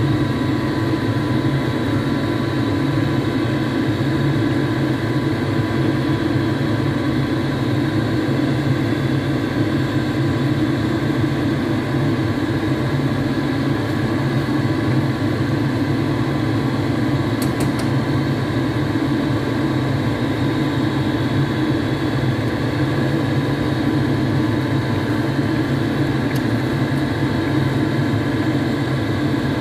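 Steady mechanical hum of kitchen equipment running by the stove, with a brief faint tick about two thirds of the way through.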